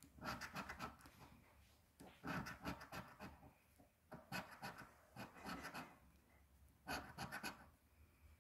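Silver coin scraping the latex coating off a scratch-off lottery ticket: faint rasping strokes in five short bunches, with pauses between.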